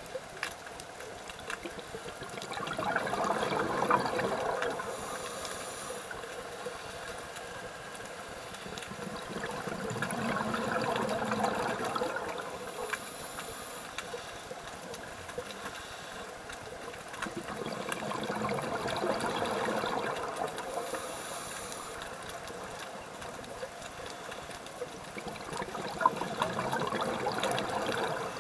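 Scuba diver breathing through a regulator underwater. Exhaled bubbles gurgle out about every eight seconds, each burst lasting two to three seconds, and a short hiss from the regulator on each inhale comes between them.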